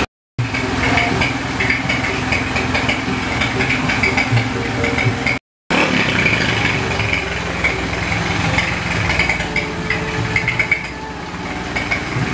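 A 200cc motorcycle engine fitted in a Honda CB, idling steadily. The sound drops out completely twice for a moment, just after the start and about halfway through.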